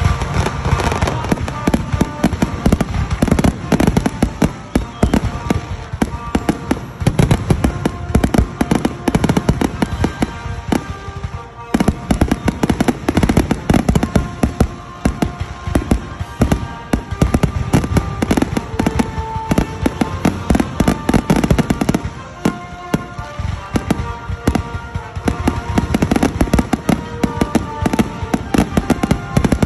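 Aerial fireworks shells going off in a rapid, continuous barrage of bangs, with music playing underneath.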